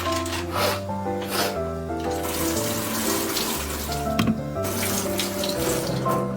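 Water running from a tap, with background music playing a steady sequence of notes.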